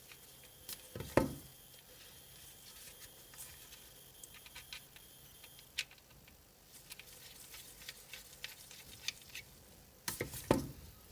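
Scattered small clicks and taps of a precision screwdriver and small tools working the tiny screws of an iPhone 6s's internal metal bracket, with two louder knocks about a second in and near the end.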